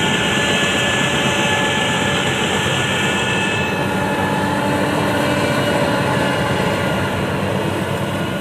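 Rice combine harvester running steadily in the paddy: a loud, continuous engine drone with steady high whining tones over it.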